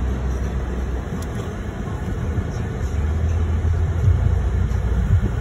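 Steady low rumble of a car's road and engine noise, heard inside the cabin as it drives slowly.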